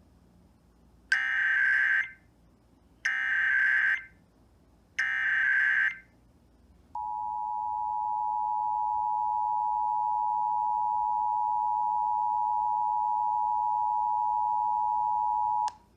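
Emergency Alert System data header: three one-second bursts of warbling data tones about a second apart, then the EAS two-tone attention signal, a steady dual-tone alarm starting about seven seconds in and held for nearly nine seconds before cutting off.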